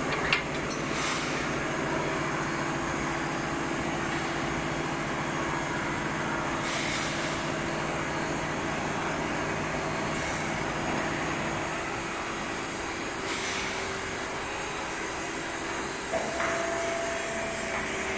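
Electric facing (milling) cutter and hydraulic unit of a hydraulic butt fusion machine running with a steady motor hum while the pipe ends are trimmed. A low tone in the hum drops out about two-thirds through; a click comes just after the start and another about 16 seconds in, followed by a higher steady tone.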